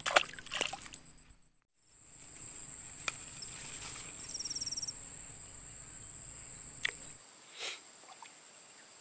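Insects chirping in a steady, high-pitched, rapidly pulsing trill, with a few faint clicks.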